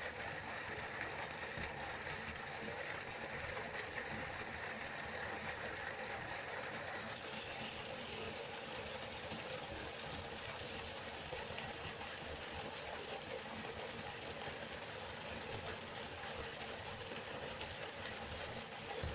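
Waterfall: a steady rush of falling water, its tone shifting slightly about seven seconds in.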